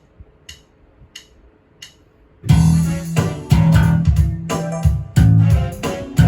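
Four sharp clicks counting in, then a four-string electric bass starts a riff about two and a half seconds in, played over a backing rhythm with sharp cymbal-like strokes.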